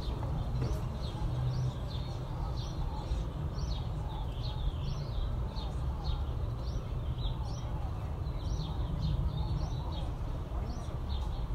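Many small birds chirping together, quick short falling chirps several times a second, over a steady low rumble.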